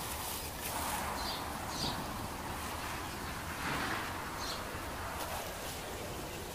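Dry coconut palm fronds rustling and crackling as they are pulled about and handled, with a bird giving short high chirps several times.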